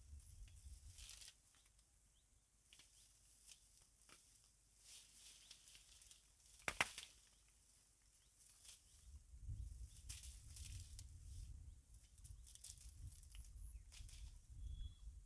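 Faint rustling and tearing of leafy vines as small bitter gourds are picked by hand, with one sharp snap about seven seconds in. A low rumble joins in during the second half.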